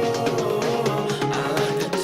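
Background music: a sustained melodic electronic pop backing track, without vocals in these seconds.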